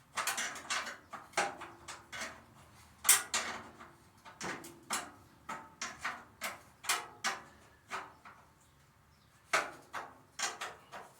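Irregular metallic clinks and knocks of hand tools and bolts being worked on a chipper shredder's housing during disassembly, with a brief pause about eight seconds in.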